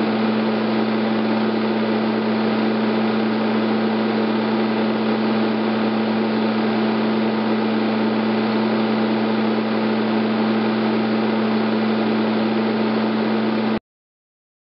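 Super 8 film projector running: a steady mechanical hum with a constant low tone, cutting off abruptly near the end.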